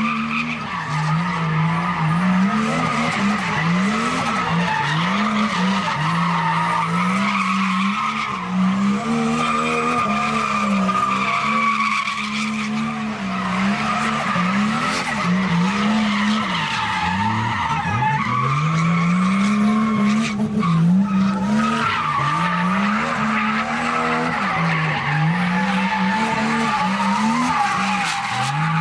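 Nissan Skyline R32 GTS-T's turbocharged straight-six revved hard, its pitch climbing and dropping again and again, while the spinning rear tyres squeal steadily in a smoky burnout.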